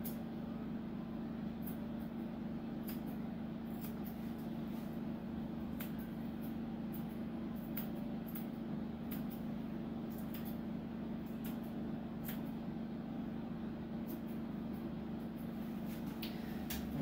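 Grooming shears snipping the hair between a dog's paw pads, crisp clicks at irregular intervals, sometimes in short runs. A steady low hum lies underneath.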